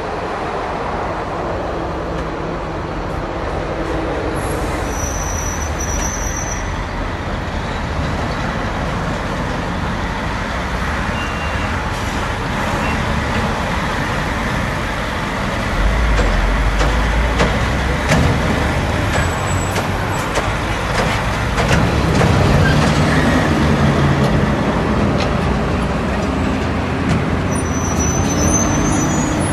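Heavy eight-wheel diesel dump trucks drive over rough dirt, their engines running steadily. Their low rumble swells past the halfway point and again a little later, and a couple of brief high squeals come near the start and near the end.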